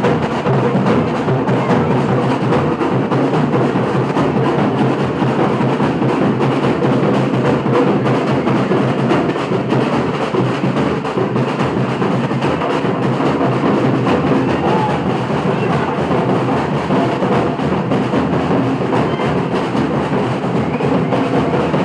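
Samba bateria, a batucada percussion ensemble, drumming at a steady level without a break.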